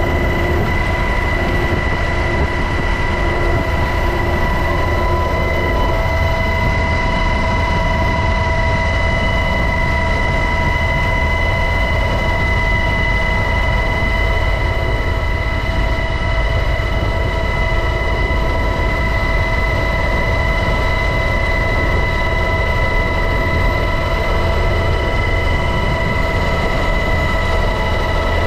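UH-60 Black Hawk helicopter running steadily: a constant low rumble with a high, steady whine above it.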